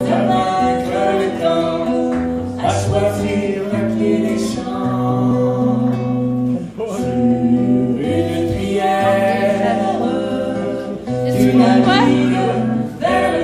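Live acoustic folk band playing: bowed fiddle, strummed acoustic guitar and keyboard, with singing.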